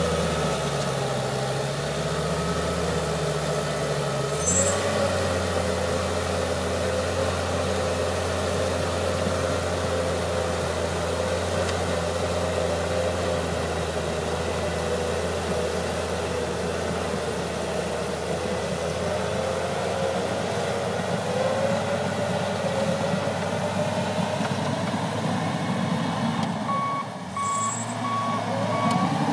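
John Deere 700H bulldozer's diesel engine running steadily under load while pushing dirt, its pitch shifting as it works. Near the end its backup alarm beeps about twice a second as the dozer reverses.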